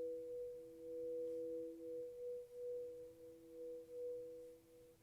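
Crystal singing bowls ringing on two steady, pure tones, one higher and one lower. Their loudness swells and dips in slow pulses, and they fade away near the end.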